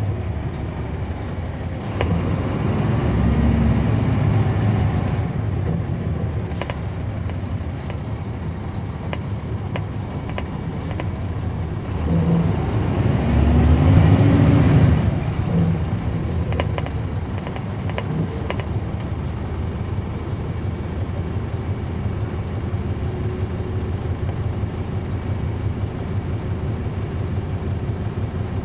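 Caterpillar C13 diesel engine of a NABI 40-foot transit bus, heard inside at the back of the bus with its engine fans on. It revs up twice, about 2 seconds in and again about 12 seconds in, its pitch rising as it pulls, then settles to a steady run.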